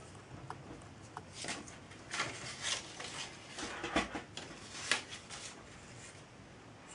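Paper template rustling in short bursts as it is handled on and pulled off a model steam engine's boiler, with a few light clicks from the handling.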